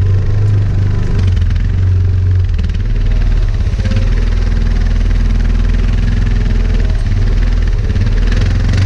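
ATV engine running steadily at low speed while the quad moves slowly along a rough trail.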